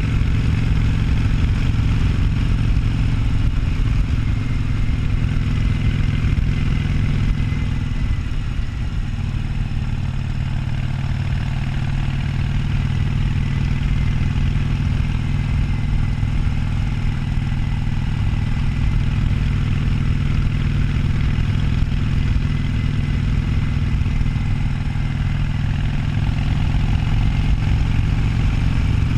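Harley-Davidson Sportster 1200's air-cooled V-twin engine running steadily while riding, with a brief change in its note about eight seconds in.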